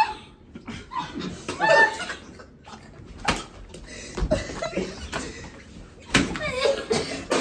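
A few sharp smacks of a flour tortilla slapped across a face, with people laughing and shrieking around them.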